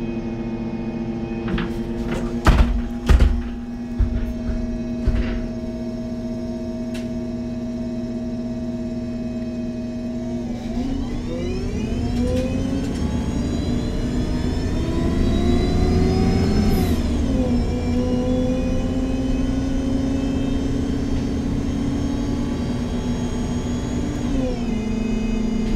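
MAN Lion's City G NG313 CNG articulated bus with a Voith automatic gearbox: the gas engine runs with a steady hum, and two loud knocks come about three seconds in. About ten seconds in, the engine and gearbox whine rise as the bus pulls away, drop sharply at an upshift a few seconds later, climb again, and fall off near the end.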